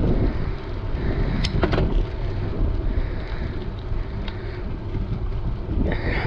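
Wind buffeting a GoPro HERO9 Black's microphone on a moving bicycle: a steady low rumble, with a few brief clicks about a second and a half in and a short rustle near the end.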